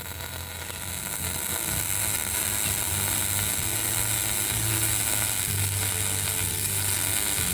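MIG welding arc crackling and sizzling steadily.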